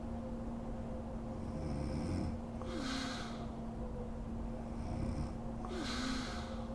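A sleeping woman snoring, two slow breaths about three seconds apart, each a low snore followed by a breathy hiss. A steady hum runs underneath.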